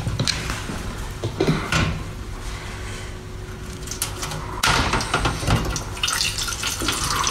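Water poured from a metal kettle onto a large clam in a glass tray, splashing, with small knocks of the shell against the tray. The pouring grows louder about four and a half seconds in.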